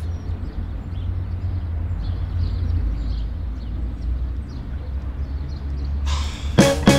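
Outdoor street ambience: a steady low rumble with a faint hiss above it. About a second before the end a louder noise comes in.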